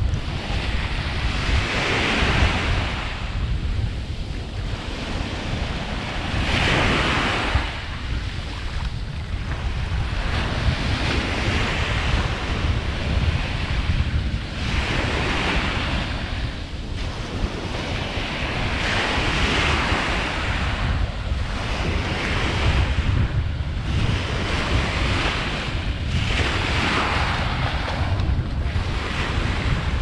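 Small waves breaking and washing up on a sandy beach, a hiss that swells about every four seconds. Under it runs a steady low rumble of wind on the microphone.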